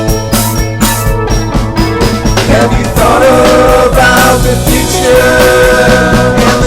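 Moog Prodigy monophonic analog synthesizer playing a lead line over a drum beat and a held bass. The lead comes in about three seconds in, with notes that glide into each other.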